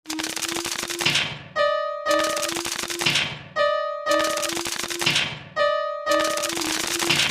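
Made-up electronic level-crossing warning signal looping about every two seconds, four times: rapid clicking over a low steady tone, a falling hiss, then a short two-pitch beep.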